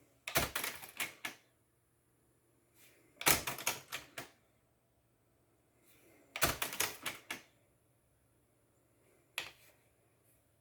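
Technics RS-TR265 cassette deck's tape transport clicking and clunking as it changes mode: three bursts of rapid mechanical clicks about three seconds apart, then one lone click near the end.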